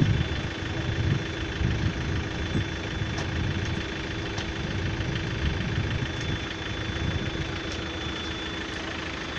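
An engine idling steadily under a low, uneven rumble, with a thin steady high whine that stops shortly before the end.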